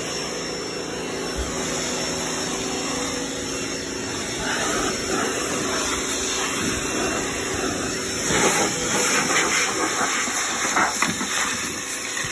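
Water spray hissing steadily while washing down a car's engine bay, growing louder and splashier about eight seconds in.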